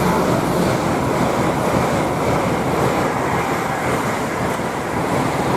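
A passenger train running past close by, with a steady, loud rushing rumble of wheels and air.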